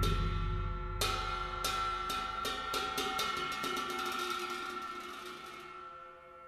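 Cymbals from Tibetan Buddhist ritual music, struck in a series of strokes that come quicker and quicker and fade away, over the dying ring of a deep drum stroke.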